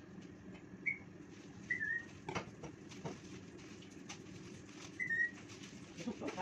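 Three short, high chirps, bird-like, over a low steady room hum, with a couple of sharp knocks about midway and near the end.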